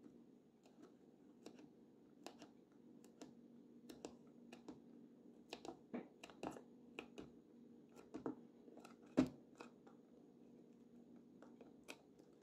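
Faint, irregular scratching and small clicks of fingers picking and rubbing adhesive residue off the bare metal panel of a Polaroid SX-70 camera, with one sharper tap about nine seconds in.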